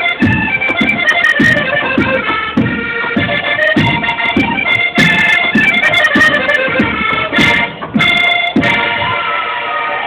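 Live band music led by an accordion playing a quick melody over a steady drum beat. In the last second or so it moves into longer held notes.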